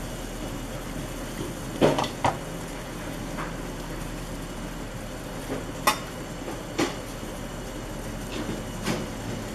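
Water bubbling at a boil in a stainless-steel pot, with a metal spoon knocking against the pot about five times as okra is tipped in; the two loudest knocks come close together about two seconds in.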